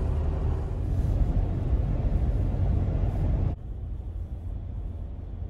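Jeep Wrangler Rubicon driving on a paved road, a low steady rumble of engine and tyres heard from inside the cabin. About three and a half seconds in it cuts abruptly to a quieter, thinner road noise.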